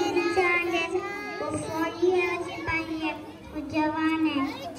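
Young boy singing a Hindi song into a microphone, with long held notes that bend in pitch.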